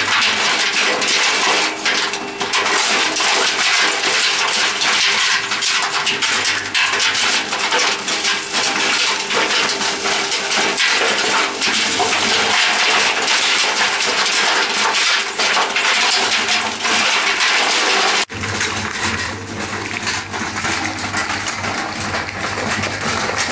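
Electric coconut shredder running loaded with coconut waste, a dense clatter of pieces being chopped and knocking inside the housing. About eighteen seconds in the sound cuts to a quieter, steadier running hum.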